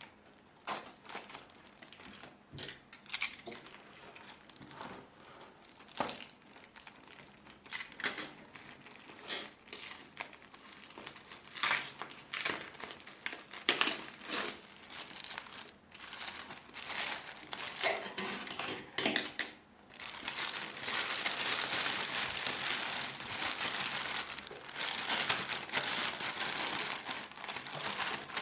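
Packaging being unwrapped: scattered sharp crinkles and crackles of plastic wrapping for most of the time, turning into a dense, continuous crinkling about two-thirds of the way through.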